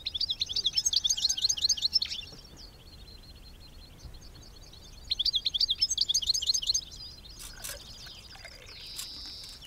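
European goldfinch singing: two bursts of quick, high twittering about three seconds apart, then a drawn-out high note near the end. A couple of sharp clicks come between them.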